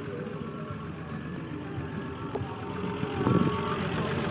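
1954 Chevrolet Corvette's Blue Flame inline-six with triple Carter carburetors idling steadily, heard close over the open engine bay. A short louder bump comes a little after three seconds in.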